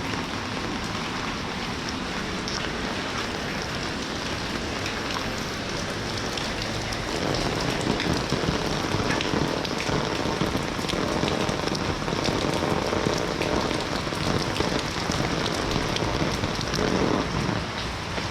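Steady rain falling, with scattered individual drops; it grows louder from about seven seconds in and eases near the end.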